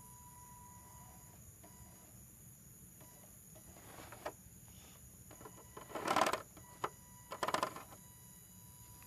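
Axial SCX10 scale RC crawler's tires crunching and scrabbling on loose sand and gravel as it climbs, in two short bursts about six and seven and a half seconds in, with a few lighter clicks of grit before.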